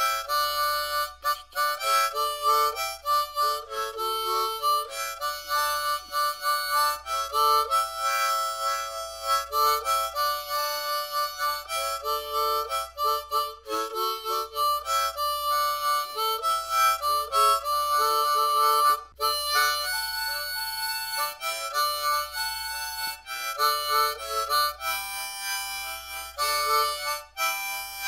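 A harmonica played as a melody, note after note with brief breaks between phrases, picked up by a LENSGO KD96 cardioid condenser microphone.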